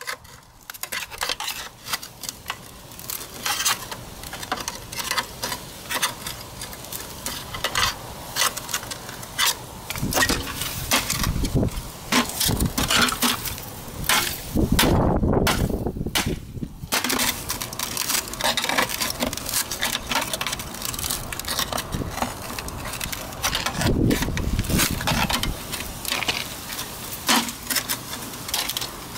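A metal pry bar scraping and clinking against the sheet-steel shell of a cut-open scooter muffler as the end section is levered off: irregular metallic clanks, scrapes and knocks, denser and louder in a couple of stretches.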